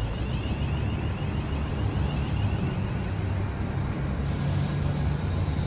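London Northwestern Railway electric multiple unit running at the platform: a steady low rumble with a wavering high whine above it, and a hiss that comes in about four seconds in.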